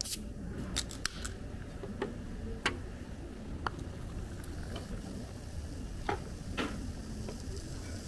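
A can of Chilsung Cider soda cracked open with a sharp pop and a brief hiss of escaping gas, followed by scattered light clicks and clinks as the soda is poured into a paper cup.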